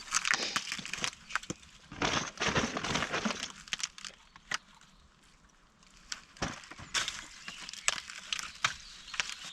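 Dry flood debris crackling and snapping as it is stepped on and handled: two dense spells of crackling about a second long, then scattered single snaps.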